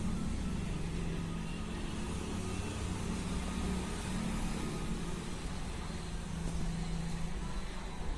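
Steady low hum of a motor vehicle engine running, over general street noise.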